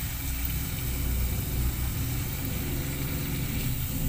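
Potato slices sizzling faintly in hot oil as a spiral-cut tornado potato deep-fries, over a louder, steady low motor-like hum.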